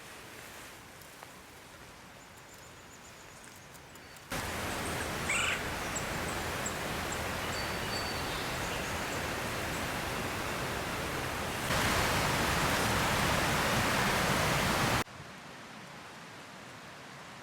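Steady rushing of a fast, high-running river: a continuous even noise that starts abruptly about four seconds in, steps louder near the end and cuts off suddenly.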